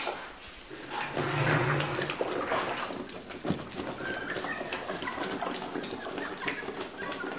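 A cloth filter bag of soybean slurry being pressed and wrung by hand inside a wicker basket, straining the soy milk: wet squishing, creaks and crackles from the basket, and liquid running through into the wok below. A short low sound, like an animal's call, comes about a second in and lasts about a second.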